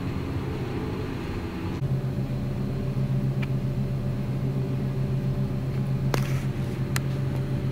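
Steady low machinery hum that gets louder and deeper about two seconds in, with two short sharp clicks near the end.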